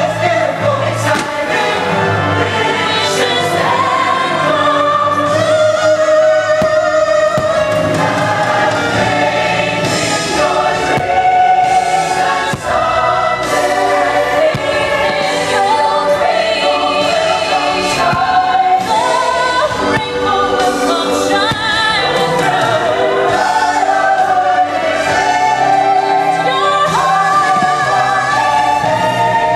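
Choral music with a choir singing, the soundtrack of a fireworks show, with faint firework bursts underneath.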